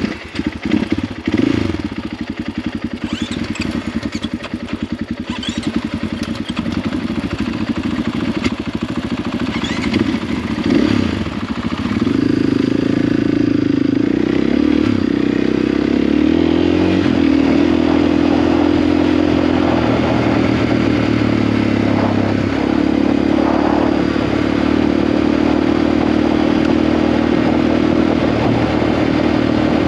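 Single-cylinder 690 cc dual-sport motorcycle engine pulling away and riding, with knocks and clatter over the first seconds. About twelve seconds in it gets louder and settles into a steady engine note, with a few small changes in pitch as it runs on.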